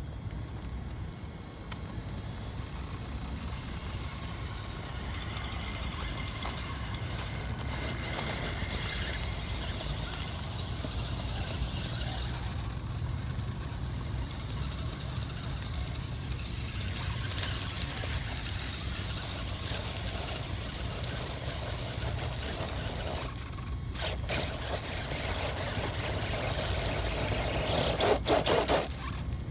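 Radio-controlled rock crawler on an Axial SCX10 chassis driving over gravel and loose crushed rock: electric motor and gear whine with stones crunching and clattering under the tyres, loudest in a burst near the end as it climbs the rock pile. A steady low rumble runs underneath.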